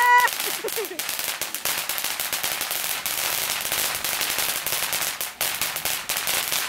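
Firework fountain on the ground spraying sparks, a dense, steady crackling and hissing with a couple of brief dips.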